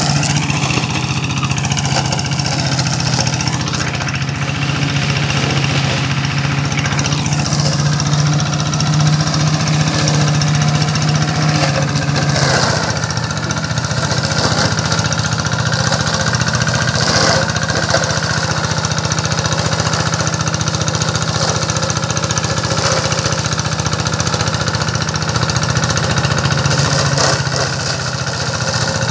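Engine of a sugarcane stubble-cutting (ratooning) machine running steadily during a trial. Its hum drops slightly in pitch about twelve seconds in.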